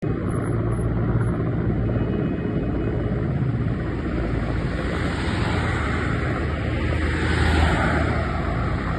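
Aircraft engine noise, steady and loud, swelling a little about seven and a half seconds in.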